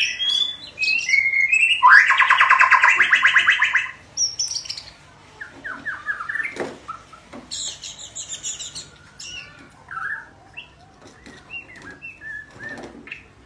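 Young white-rumped shama practising its song. A loud, fast trill of evenly repeated notes comes about two seconds in, followed by softer scattered whistles and chirps, then a second, higher trill about halfway through.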